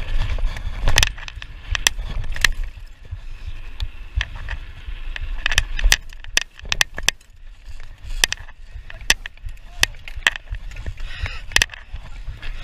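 Mountain bike rolling fast over a rough dirt trail: sharp, irregular knocks and clatter from the bike over a steady low rumble of wind on the microphone.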